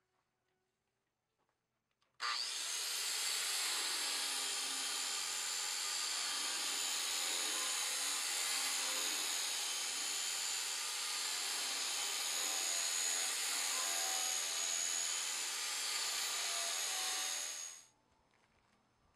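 Electric angle grinder with a sanding disc running against a steel panel: a steady high whine over a harsh rasping hiss. It cuts in abruptly about two seconds in and stops shortly before the end.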